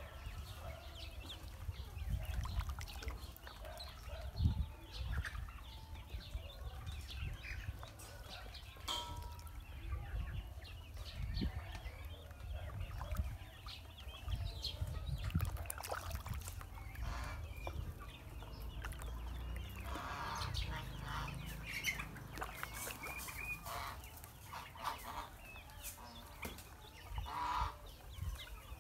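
Poultry calling: short clucks and peeps from ducklings and chickens, on and off, over a low rumble. The calls grow busier about two-thirds of the way through.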